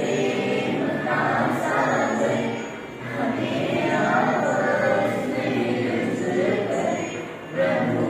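A group of students singing the morning prayer together, many voices in unison, with short breaks between lines about three seconds in and near the end.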